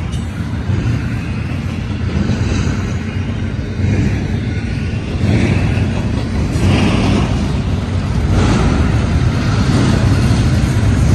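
Double-stack intermodal container train of well cars rolling past close by: a steady low rumble of steel wheels on rail that swells every second or two and grows a little louder about halfway through.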